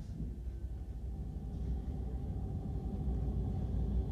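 Low, steady running rumble of a Moscow Central Circle "Lastochka" electric train, heard from inside the carriage as it rolls slowly out along a station platform. It grows gradually louder.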